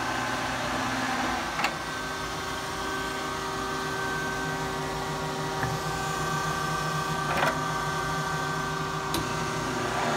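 Kearney & Trecker 205 S-12 horizontal milling machine running under power: a steady mechanical hum with several whining tones that change pitch about a second and a half in. A few sharp clicks sound over it.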